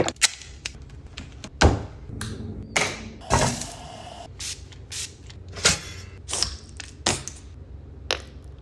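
Kitchen handling sounds: an irregular run of sharp knocks, taps and clicks from a plastic squeeze bottle and metal tongs on a pan, with a brief hiss about three and a half seconds in.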